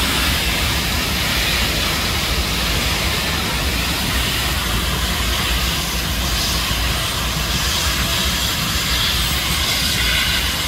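Passenger train rolling past at close range: a Union Pacific diesel locomotive, then streamlined passenger cars. The sound is a steady deep rumble under a rushing hiss of wheels on rail, without distinct rail-joint clicks.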